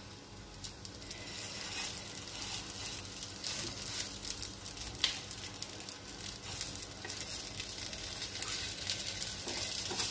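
Potato-and-poha tikkis sizzling in a thin film of oil on a hot iron tawa, with scattered fine crackles and one sharper pop about halfway. The sizzle grows gradually louder as more tikkis go onto the pan.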